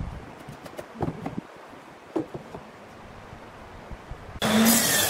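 A few light knocks of wooden blocks and a board being set down on a wooden jig and bench top. About four seconds in, a table saw switches on abruptly and runs loud and steady.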